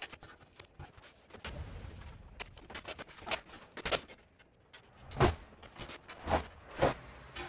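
Irregular knocks and clatter of objects being handled, with three louder thumps in the second half.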